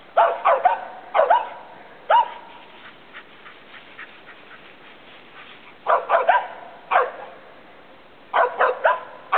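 Mountain feist squirrel dogs barking treed at the base of a tree: a squirrel is up it. Short sharp barks come in bunches of two or three with pauses of a second or more between bunches.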